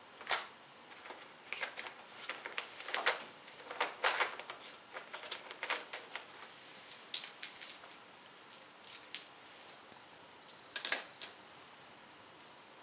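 Small game dice clicking against each other in a hand and being set down on cards on a wooden table: light, irregular clicks, with a quick cluster about seven seconds in and another about eleven seconds in.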